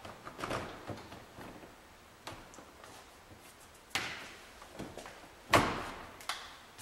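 Plastic engine splash pan knocking and rattling against the car's underbody as it is pushed up and its tabs are seated, with a few scattered knocks and one sharp, loudest knock near the end.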